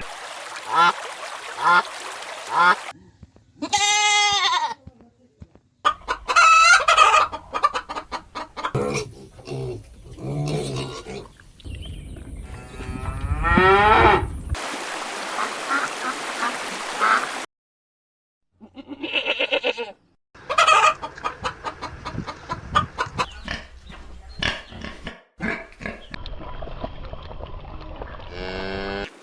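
Farm animals calling in a string of short clips that cut abruptly from one to the next, with brief silences between some; poultry calls, such as geese, chickens or ducks, are among them.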